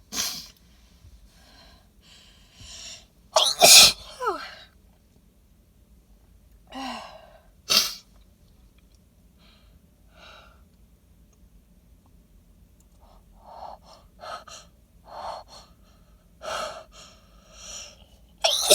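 A woman sneezing wet sneezes into her cupped hands, set off by flower pollen. There are two loud sneezes in the first half, then a run of short hitching breaths that builds into another sneeze at the very end.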